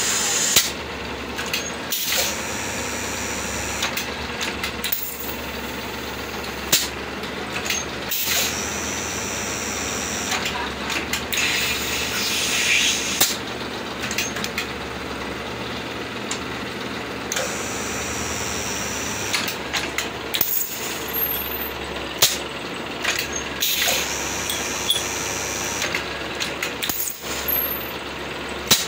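Small plastic bottle-moulding machine running: a steady motor hum with sharp clacks every one to three seconds, and a high hiss that comes and goes.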